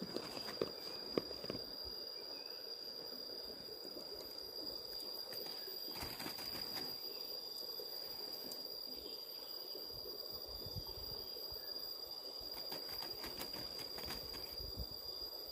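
Riverside ambience: a steady, high, thin insect trill over a low even rush of river water. There are a few light knocks in the first second or so.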